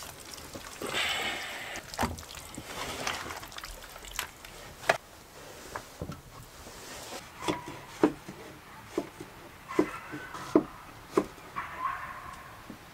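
A wooden bowl and a wooden cutting board being handled and set down on a plank table during food preparation, giving about a dozen sharp wooden knocks and clacks, spread out and closer together in the second half, with a brief rustle about a second in.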